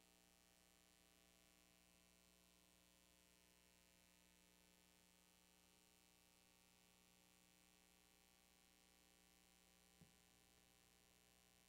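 Near silence: a faint steady electrical hum, with one brief click about ten seconds in.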